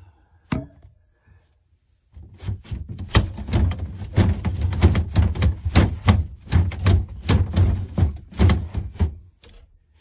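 Rapid, irregular knocking and thumping, several knocks a second, starting about two seconds in and lasting about seven seconds, after a single sharp knock near the start.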